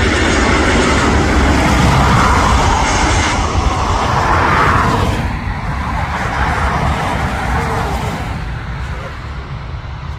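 An airliner's engines passing loud, then fading away after about five seconds as the aircraft moves off.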